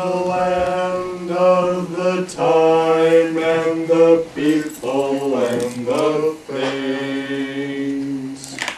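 A male voice singing long, held notes in a chant-like drone. The pitch steps to a new note every second or two and slides up and down around the middle.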